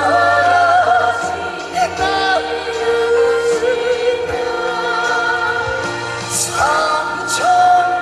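Male trot singer singing a slow ballad with band accompaniment, holding long notes with vibrato.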